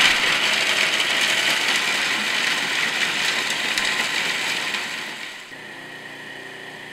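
Food processor grinding toasted blanched almonds with sugar: a loud whirring clatter of nuts against the bowl. About five and a half seconds in it turns quieter and steadier as the almonds are ground to a fine meal.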